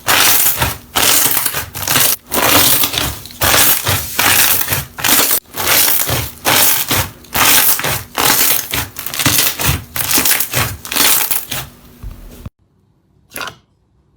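Slime being squeezed and kneaded by hand, crackling and crunching in repeated bursts a little more often than once a second. The sound cuts off suddenly near the end, followed by a single faint click.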